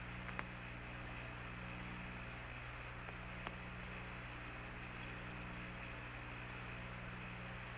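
Steady hiss and hum of the Apollo 10 air-to-ground radio downlink with no one talking, broken by two brief clicks, one just after the start and one about three and a half seconds in.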